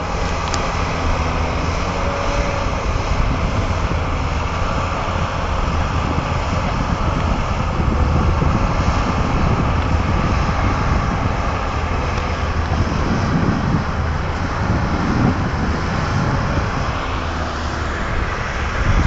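Diesel engines of John Deere 9330 four-wheel-drive tractors running steadily as they pull earth scrapers across a field.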